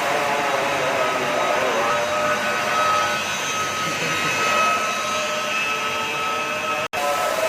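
Steady whirring of an electric blower-type motor, with a steady high whine over a rushing hiss. It drops out for an instant near the end.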